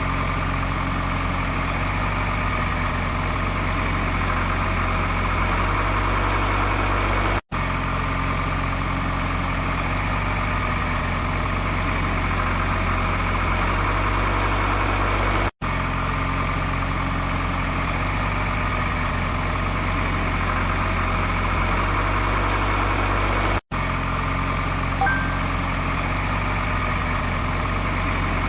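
Engine idling at a steady pace, a looped recording that breaks off for an instant and restarts about every eight seconds.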